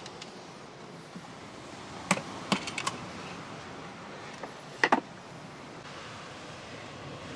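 Sharp wooden clicks and knocks from handling a wooden camp kitchen box and its smaller wooden spice box: one knock about two seconds in, a quick run of four a little later, and a louder double knock near the middle.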